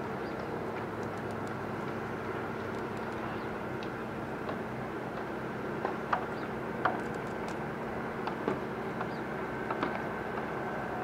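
A steady mechanical hum, as from a distant motor, drones with a few fixed tones. Several light clicks sound in the second half.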